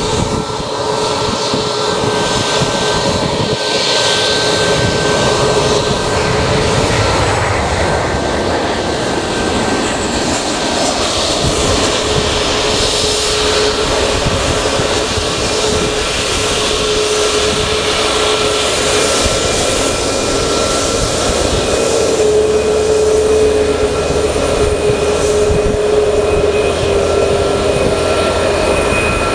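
CFM LEAP-1B turbofan engines of Boeing 737 MAX airliners taxiing close by: a steady, loud jet whine and rush with several held tones. The main tone wavers slightly about three-quarters of the way through.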